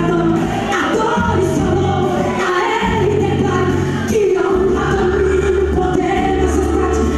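A woman singing a gospel song live into a microphone through the church's sound system, holding long notes over an accompaniment with sustained bass notes.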